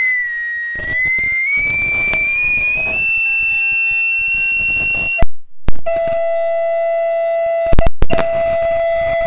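Audio feedback howl: a high whistling tone wavers, then glides slowly upward and holds. About five seconds in it breaks off with loud clicks, and a lower steady tone takes over, interrupted once more by a burst of clicks near the end.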